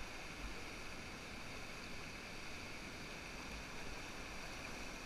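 Whitewater rapids: a steady rush of churning river water, with a few low bumps.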